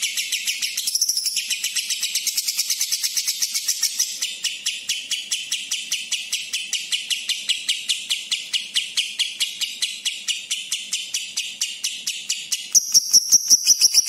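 Fischer's lovebird singing a long, unbroken run of rapid, high repeated chattering notes, about seven a second, in a song filled with imitated kapas tembak notes. Near the end the notes grow louder and higher.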